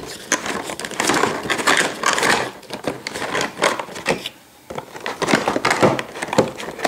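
Cardboard model-train box with a clear plastic window being opened and handled by hand: rustling, scraping and irregular clicks of card and plastic.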